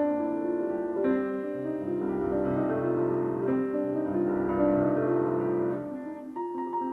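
Solo piano playing classical music, with fast repeated notes over sustained chords. Bass notes join about a second and a half in, and the texture thins briefly near the end before a new high note enters.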